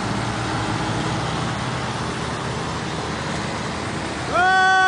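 Diesel tractor engines working under heavy load, towing a dump truck stuck in soft ground, heard as a steady rumble. Near the end a loud, steady, high tone cuts in and is held.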